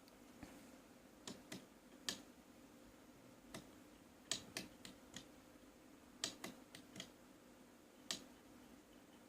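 Light clicks and taps at irregular intervals, about a dozen in all, from hands handling an Anet A8 3D printer while taking a finished print off it and setting up the next. A faint steady hum sits underneath.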